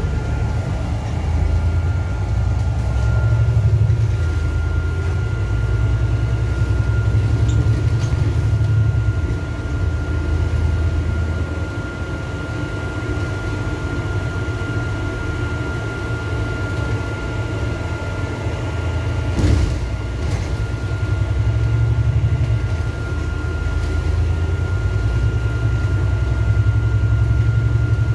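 Cabin sound aboard an Alexander Dennis Enviro400 diesel double-decker bus on the move. A low engine and road drone swells and eases every few seconds, under a thin steady high whine, with a single knock about twenty seconds in.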